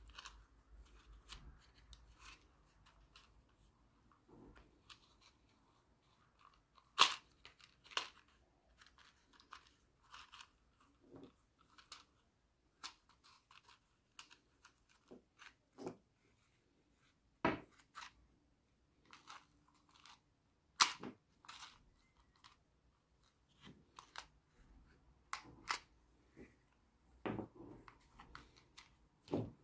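Scattered plastic clicks and knocks from a string trimmer's recoil starter being handled, its pulley turned in the housing as the starter cord is wound on. Two sharper clicks stand out, about 7 and 21 seconds in.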